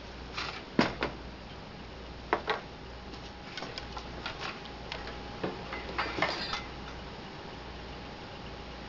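A silicone spatula stirring wet ground venison in a skillet: scattered squelchy scrapes and light knocks against the pan, about a second in and again from about three and a half to six and a half seconds in, over a steady low hum.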